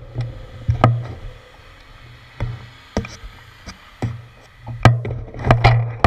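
Handlebar-mounted GoPro Hero 4 rattling and knocking with irregular sharp clicks as the bicycle rolls over the road, over a low steady hum. The knocks thin out for a moment in the middle and bunch up again near the end.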